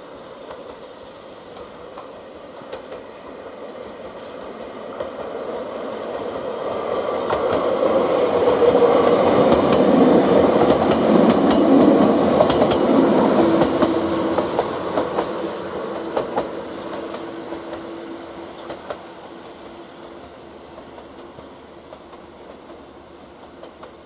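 Electric train, a stainless-steel commuter car, passing on the rail line: it grows steadily louder, its wheels clacking over the rail joints as it goes by about halfway through, then fades away with a steady hum.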